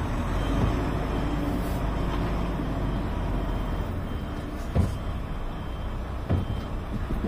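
Heavy truck's diesel engine running steadily, heard from inside the cab as the truck is driven, with a few short knocks in the second half.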